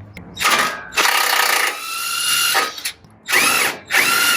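Cordless power wrench on the 18 mm upper control arm bolt, running in four spurts with the second the longest, its motor pitch rising and falling with each. The bolt is spinning along with the nut instead of coming loose.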